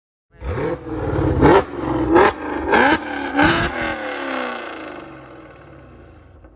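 Chevrolet Camaro SS 1LE's 6.2-litre V8 exhaust being revved in four quick blips, each rising and falling in pitch, then dropping back and settling toward idle.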